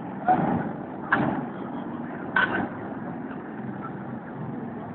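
Steady engine drone with three short, sharp sounds in the first two and a half seconds.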